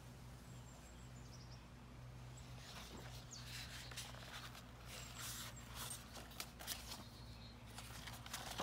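Paper rustling and soft handling sounds as the pages of a picture book are turned, starting about three seconds in, over a steady low hum and a few faint bird chirps.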